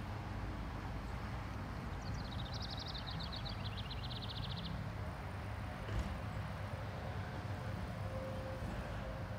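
A 2010 Chevrolet Camaro SS's 6.2-litre V8 idling with a steady low exhaust note. About two seconds in, a songbird trills rapidly for about two seconds.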